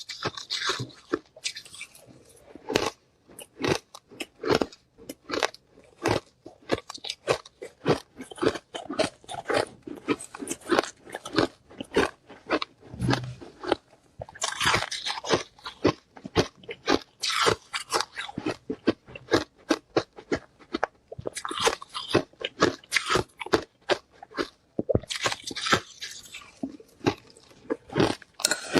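Ice being bitten and chewed close to the microphone: a dense run of sharp crunches, several a second, with brighter crackling stretches about halfway through and again near the end.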